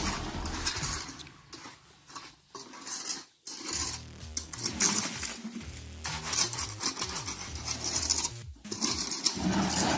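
Metal hand tools scraping and clinking against cement mortar and concrete, as a shovel and masons' trowels work mortar. Irregular short clinks and scrapes, with a brief lull a few seconds in.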